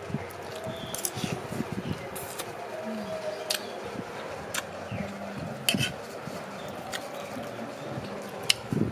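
Eating sounds: a mouthful of leafy greens chewed, with sharp clicks of a metal spoon against a dish every second or so.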